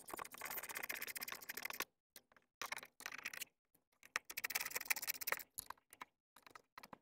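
Small hand ratchet with a #4 bit clicking in quick runs as it backs out the screws on the turbo diverter valve. There are three runs of rapid clicks with short pauses between them, then a few scattered single clicks near the end.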